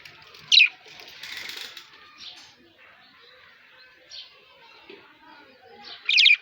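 Birds chirping: two loud, sharp, quickly falling chirps, one about half a second in and one near the end, with fainter calls between them and a brief rustling hiss about a second in.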